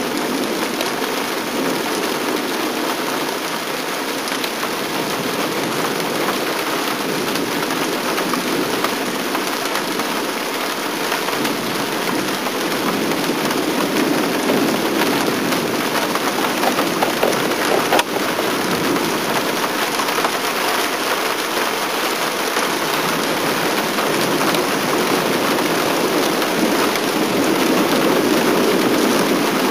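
Heavy rain falling steadily in a thunderstorm, swelling a little at times, with a single sharp click about two-thirds of the way through.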